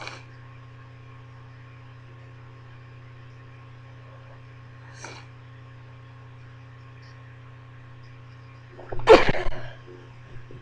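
A person's stifled sneeze about nine seconds in: one short, loud, held-in burst. A steady electrical hum runs underneath.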